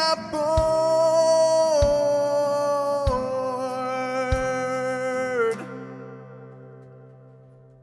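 Music: a sustained melody that steps down in pitch, over a low beat about every second and a quarter. It stops about five and a half seconds in and its ring dies away.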